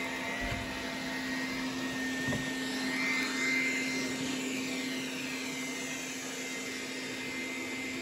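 Roborock S4 Max robot vacuum running on carpet: its suction fan and brushes give a steady hum with a high whine, which swells briefly about three seconds in.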